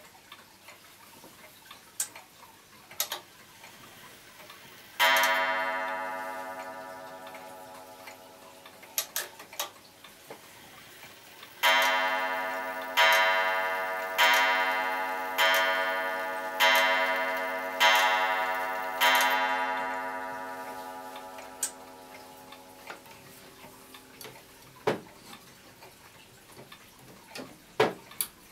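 Twin-weight Vienna regulator wall clock striking on its gong: one single strike, then about seven seconds later a run of seven strikes about 1.2 s apart, each ringing on and fading slowly. Sharp clicks from the movement are heard here and there.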